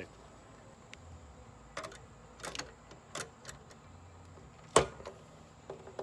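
Metal clicks and knocks from hands working the cartridge fuses in an HVAC fused disconnect box. A handful of short, sharp clicks come over the first few seconds, then one loud clack about five seconds in.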